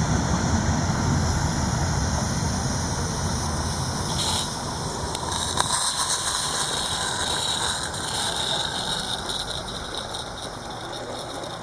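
A pair of small 16mm-scale live-steam garden-railway locomotives running past with a train, a hiss of steam with faint rapid ticking from the wheels and exhaust, growing fainter as the train moves away. A steady low rumble underneath fades out about five seconds in.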